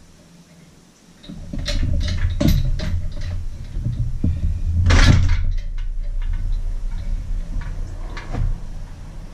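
Metal knocks and clanks as the power head of a Mercury Thunderbolt 500 50 hp outboard is worked loose from its mid cowl, the loudest knock about five seconds in. A steady low hum starts about a second in and runs under the knocks.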